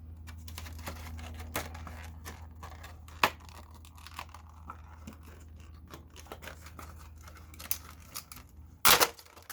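Hard plastic packaging being handled and pried, crinkling and crackling with many small clicks. There is a sharp crack about three seconds in and a louder snap near the end.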